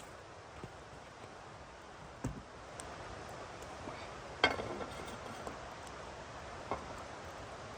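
A few knocks and clinks of cookware over a steady low hiss, the loudest about four and a half seconds in with a short metallic ring.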